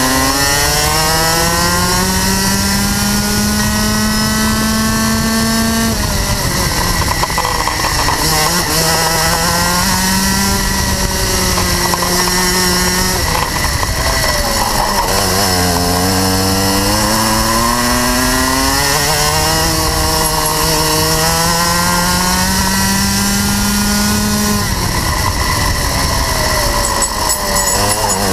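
Rotax Max 125cc two-stroke kart engine under racing load, heard from on board: its pitch climbs for several seconds along each straight and falls off sharply when the driver lifts for a corner, three times, then climbs again near the end.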